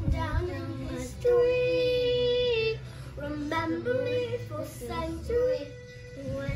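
A song with a high sung voice over a steady bass line, with one long held note starting about a second in and lasting about a second and a half.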